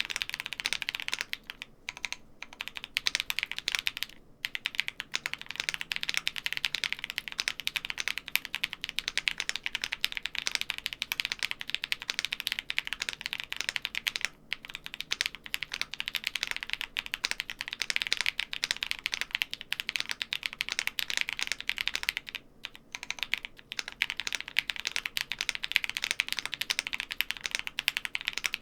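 Fast, continuous typing on a KeyBee Stripe 60 mechanical keyboard with KTT Kang Ash Gray tactile switches on a steel plate, fully foamed: a dense stream of key clicks broken by a few short pauses.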